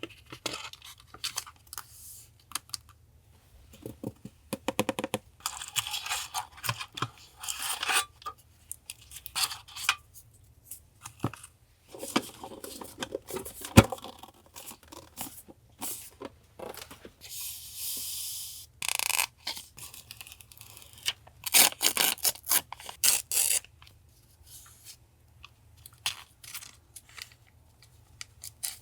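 Paper being handled, rustled and torn in irregular short noisy bursts, with a single sharp tap about fourteen seconds in.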